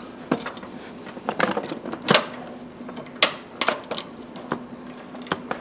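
Metal parts and tools being handled: a series of sharp clinks and knocks, about seven spread over a few seconds, over a faint steady hum.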